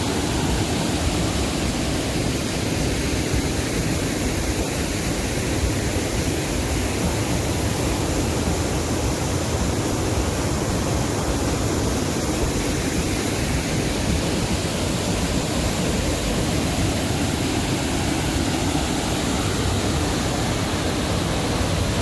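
Steady, loud rush of a waterfall's strong flow pouring over wide rock ledges in white-water cascades.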